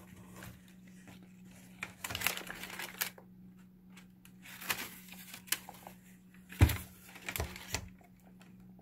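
Tissue wrapping paper in a shoebox rustling and crinkling in irregular bursts as a sneaker is handled and turned over, with one dull knock about two-thirds of the way through, over a steady low hum.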